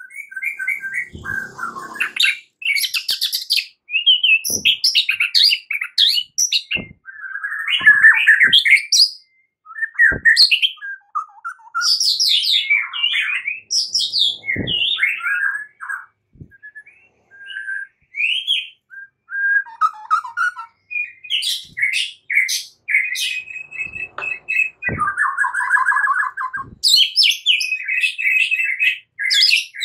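White-rumped shama singing in its combative 'fighting' style: a fast, varied run of whistled phrases and chattering notes, with one held whistle and then a harsh buzzing chatter late on. A few soft knocks sound among the notes.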